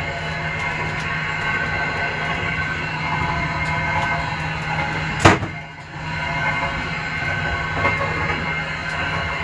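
Steady running rumble and low hum of a moving Russian Railways double-decker passenger train, heard inside its toilet compartment. One sharp knock comes about five seconds in.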